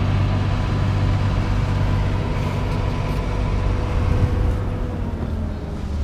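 New Holland combine running at working speed as it pulls up alongside a grain wagon: a steady engine drone with faint high whines from the machine.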